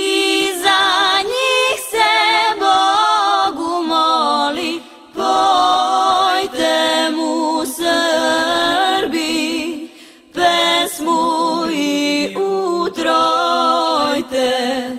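A choir singing unaccompanied, in phrases broken by short pauses about five and ten seconds in, stopping abruptly at the end.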